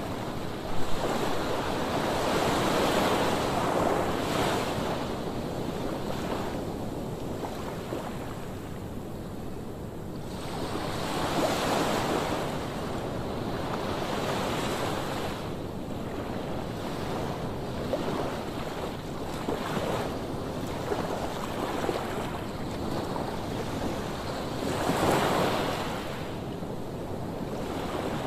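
Sea waves breaking and washing up the shore, swelling and easing several times, with wind buffeting the microphone. A brief knock about a second in.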